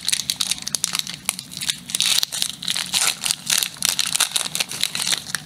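Foil Pokémon card booster-pack wrapper crinkling and tearing, with rapid irregular crackles, as hands struggle to rip the pack open.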